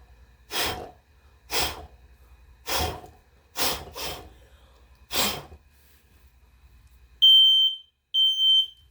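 Someone blowing hard at a large candle flame in six short puffs, then a ceiling smoke alarm gives two loud, high-pitched beeps near the end. The alarm is set off by the candle's smoke rising to the ceiling.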